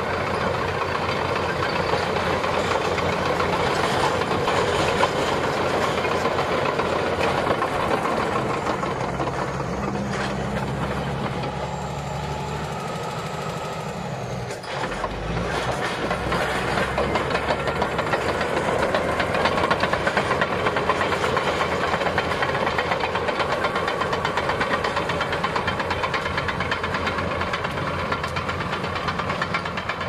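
Shantui SD22F crawler bulldozer's diesel engine running under load as it works its blade through snow and gravel. The engine settles to a lower, steadier note about ten seconds in, then picks up again about fifteen seconds in.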